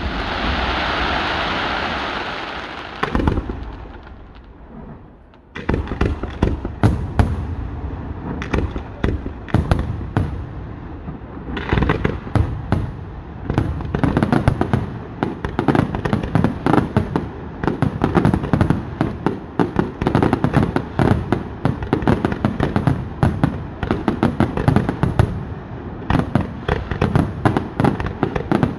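Aerial fireworks display: a loud crackling hiss from bursting shells fades to a brief lull. From about five seconds in it breaks into a dense, rapid barrage of shell bursts, several bangs a second, that carries on to the end.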